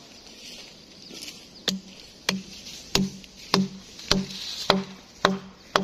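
Wooden mallet knocking against a freshly chainsawed sengon log near the saw cut: about eight hard, evenly paced knocks a little over half a second apart, starting about a second and a half in, each with a short hollow ring.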